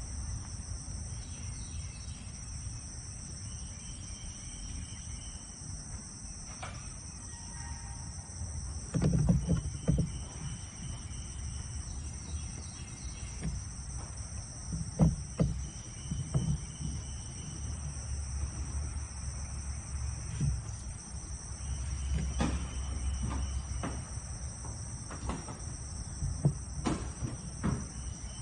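Insects calling in a steady, high-pitched chorus, with a shorter higher trill that comes and goes. A few knocks and rustles close by stand out over it, the loudest about nine seconds in and again near fifteen and twenty-seven seconds.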